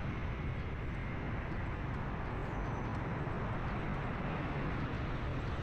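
Steady street traffic noise of motorbikes and cars, heard from a vehicle moving along a city road.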